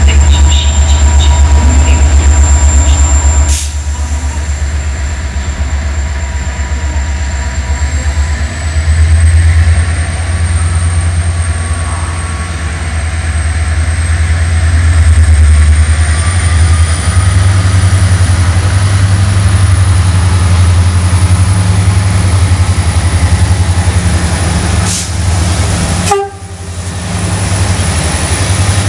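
GM-engined CFR Class 65 'Jimmy' diesel-electric locomotive running with a steady low engine drone as it approaches hauling a passenger train.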